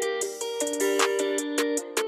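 Background music: plucked-string notes over a light, steady beat.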